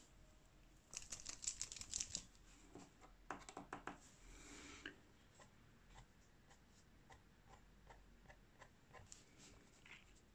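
Faint handling and drawing sounds: a quick run of sharp clicks and rustles about a second in, then more clicks and a brief scratchy hiss, then light scattered ticks of a marker tip dabbing on paper.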